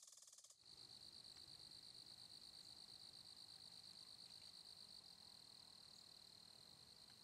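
Faint crickets chirping in a steady, fast, even pulse at a high pitch, starting about half a second in.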